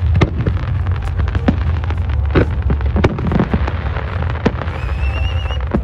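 Aerial fireworks going off in a display: irregular bangs and crackles over a steady low rumble, with a wavering whistle near the end.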